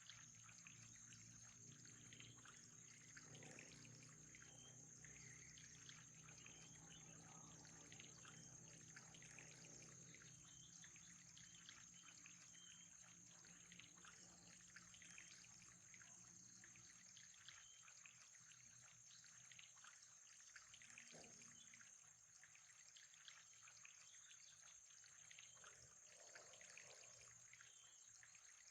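Faint trickling water, with a steady high-pitched whine underneath.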